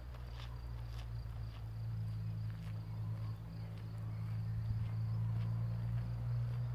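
Low, steady rumble of wind on a phone's microphone, a little louder from about two seconds in, with a few faint ticks.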